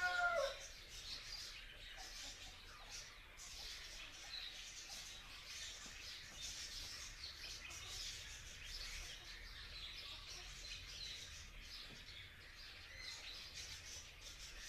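A rooster's crow ends about half a second in, then faint chirping of small birds continues over a soft outdoor hiss.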